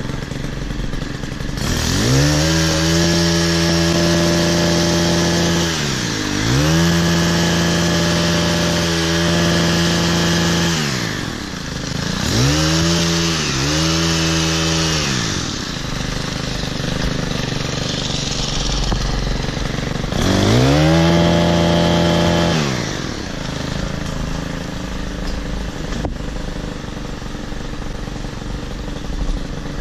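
Stihl KM 90 R KombiMotor engine driving an articulating hedge trimmer attachment, revved to full throttle in several bursts of one to four seconds, the pitch rising quickly and sagging back to idle between them. It idles for the last several seconds.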